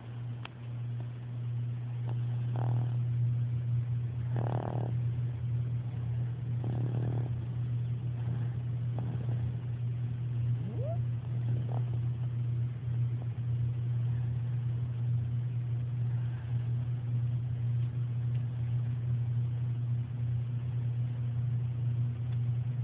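A four-month-old baby snoring: a steady low rattle that runs on without a break. A few fainter breathy puffs come in the first seven seconds, and there is a short rising squeak about eleven seconds in.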